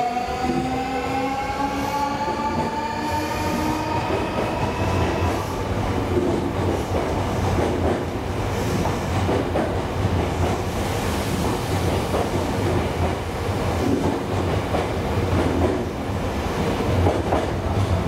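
Nankai 8300-series electric train pulling out. Its inverter-driven traction motors give a whine that rises in pitch for the first few seconds as it accelerates. After that, steady wheel-and-rail rumble with clicks over the rail joints as the cars roll past.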